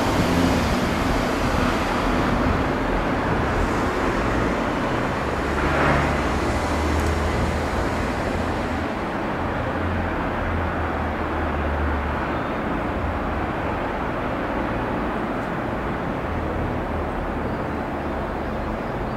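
Steady outdoor background noise of road traffic, a continuous hiss with a low rumble underneath.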